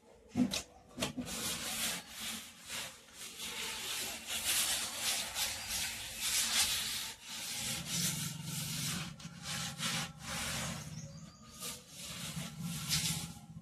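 Wet cloth being scrubbed back and forth over a kitchen counter slab, a run of repeated rubbing strokes.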